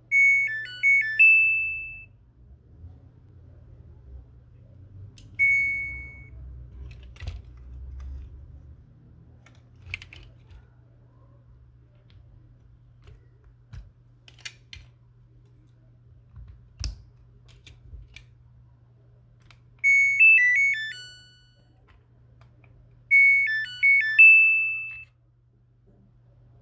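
Samsung washing-machine control board's buzzer playing its short multi-note electronic tune three times, at the start, about 20 seconds in and about 23 seconds in, with a single beep about five seconds in. Light clicks from the boards and connectors being handled come between the tunes.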